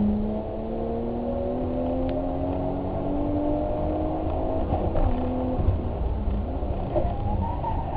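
Car engine pulling steadily with a slowly rising pitch. It drops back about five and a half seconds in, then climbs again near the end, over a steady low rumble.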